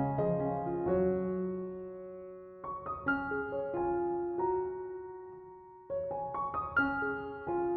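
Background music: a soft piano playing clusters of chords and notes that ring on and fade between phrases.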